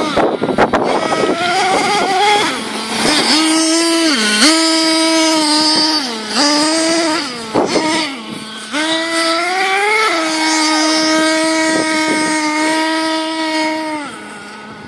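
Thunder Tiger MTA4 S28 nitro RC truck's small two-stroke glow engine, fitted with a twin exhaust, running at high revs. Its pitch dips and recovers several times as the throttle is worked, climbs to a steady high note about ten seconds in, then falls away near the end.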